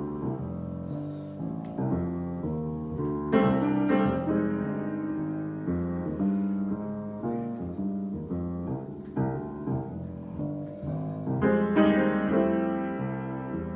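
Solo piano improvisation: a steady flow of notes and chords, with louder chords struck about three seconds in and again near the end.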